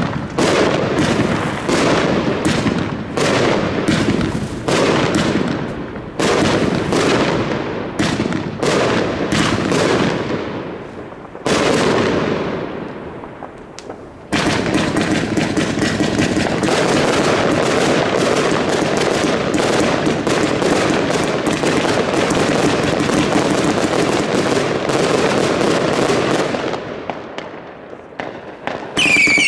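Consumer firework cakes firing. A run of sharp shots and bursts about one to two a second gives way about halfway through to a short lull, then to a dense rapid-fire barrage of shots and crackling bursts that dies away near the end.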